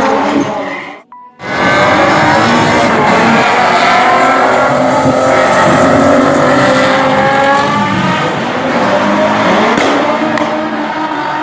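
Drift cars' engines revving up and down with tyres squealing as they slide. The sound cuts out sharply for about half a second around a second in, then carries on.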